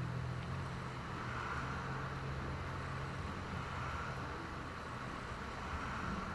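Steady rain during a thunderstorm, with a low rumble underneath that fades out about halfway through.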